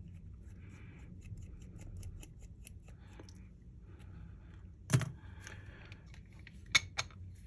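Small metal tools handled on a workbench while screws are backed out of the bottom of an iPhone: faint rapid ticks, one sharp knock about five seconds in, then a few clicks near the end.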